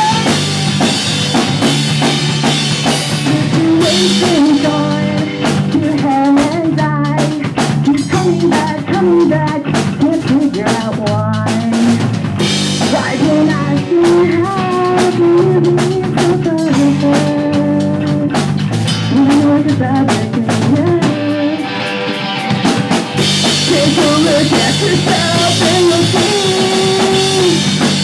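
Pop punk band playing live: drum kit with snare and bass drum hits prominent under electric guitars. The low end briefly drops out about two-thirds of the way through before the full band comes back in.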